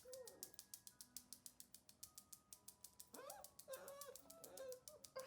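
Faint background music with a fast, even ticking beat and a few short melodic phrases.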